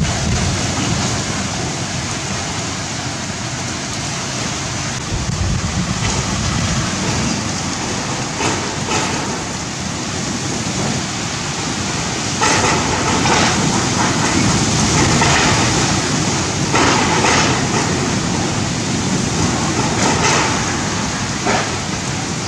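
Super cyclone winds roaring steadily through trees, with heavy rain. The roar swells in several strong gusts in the second half.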